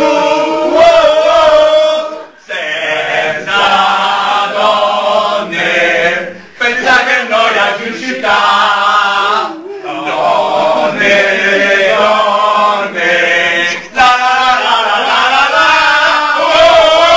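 A crowd of men and women chanting loudly in unison, in sung phrases broken by short pauses for breath about every three to four seconds.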